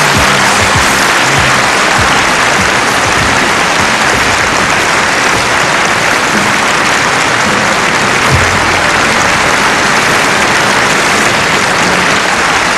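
Studio audience applauding steadily, with the song's backing music dying away in the first second.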